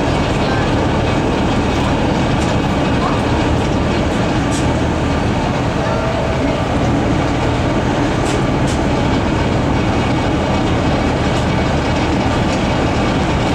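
Steady drone of a Moskva-class river passenger boat's diesel engine, heard on board as the boat moves slowly along a pier.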